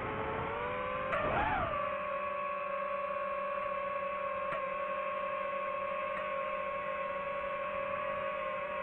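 FPV drone motors whining at a steady pitch. About a second in, a brief burst of throttle raises the pitch for a moment, then the whine settles back to an even tone.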